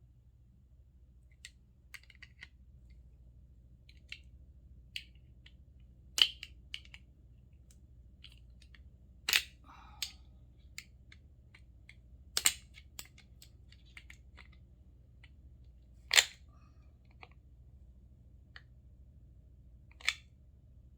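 Metal doorknob parts clicking and clinking as they are twisted and worked by hand to line up misaligned slots: scattered faint ticks with five sharper clicks a few seconds apart, over a faint steady low hum.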